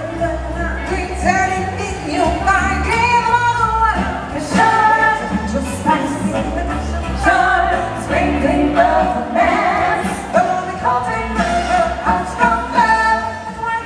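A woman singing a stage number into a microphone, backed by singers and a band track with a steady bass beat.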